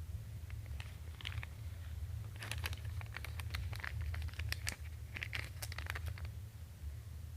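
Light handling noises: crinkling and sharp little clicks, mostly in the middle stretch, over a steady low hum.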